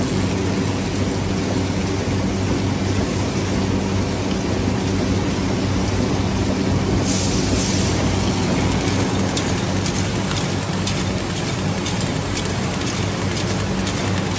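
Automatic single-spoon feeding and packing machine running: a steady mechanical hum and clatter, with a brief hiss about seven seconds in and quick light ticking through the second half.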